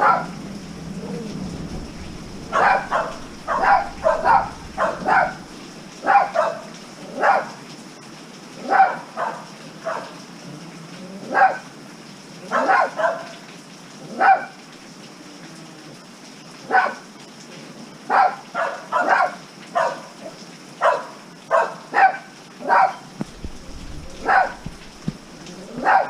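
A dog barking over and over in short, irregular runs of two to four barks, over the steady hiss of heavy rain.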